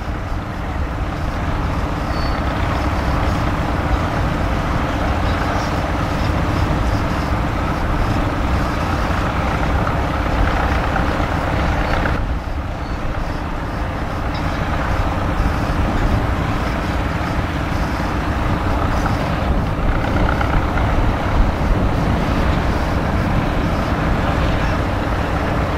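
Fendt 724 tractor's six-cylinder diesel engine running steadily under load while pulling a six-furrow reversible plough, with a brief dip about halfway through.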